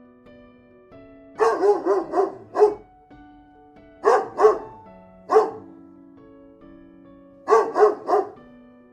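A dog barking in quick bursts of several barks, three groups in all, over soft background piano music.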